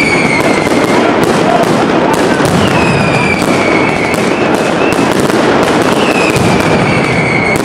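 Mascletà firecrackers going off in a fast, unbroken crackle of loud bangs. A falling whistle from whistling fireworks rises over the cracks about three times: near the start, around three seconds in, and near the end.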